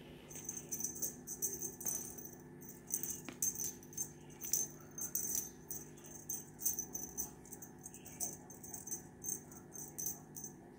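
Feather wand cat toy rattling and jingling in quick, irregular bursts as it is waved and batted by paws.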